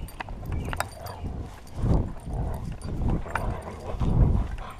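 Tug-of-war with a dog on a rope toy close to the microphone: irregular rough low bursts of sound from the dog's pulling and play, with scattered knocks and rustling.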